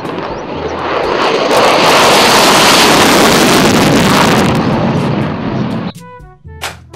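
F-16 fighter jet's engine on afterburner during a runway takeoff: a loud jet rush that builds over the first couple of seconds, holds, then cuts off abruptly about six seconds in.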